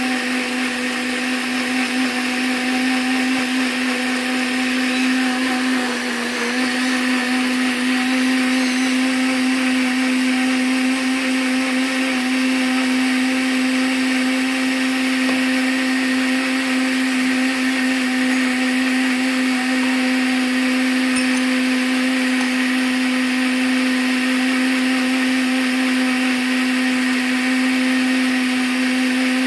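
Emjoi countertop blender's motor running steadily on its setting, blending a watery mix of tomato, garlic, chili powder and herbs into a spice paste: a constant loud motor hum that dips briefly about six seconds in.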